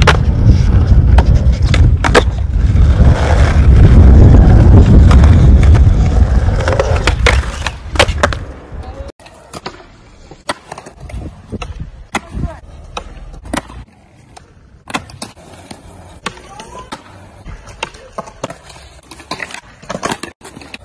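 Skateboard wheels rolling over street pavement with a loud, steady low rumble for the first nine seconds or so. After a sudden break, the quieter sound of a skateboard on smooth skatepark concrete: sharp clacks of the tail popping and the board landing, several times over.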